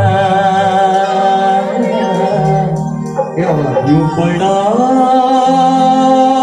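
Live Kumauni folk music with long held notes, which break into sliding pitches briefly around the middle before settling again.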